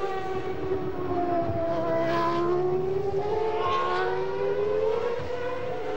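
Formula One car running at high revs on track, the engine note of a McLaren MP4/9's Peugeot V10 held high and sliding slowly down and back up through the bends.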